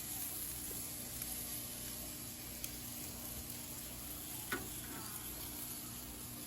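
Cheddar cheese brats and beef hot dogs sizzling steadily on a charcoal grill grate, with one sharp click about two-thirds of the way through.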